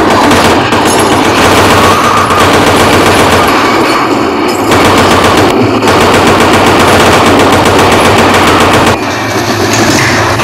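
Sustained automatic gunfire, loud and unbroken, easing off briefly about nine seconds in before picking up again.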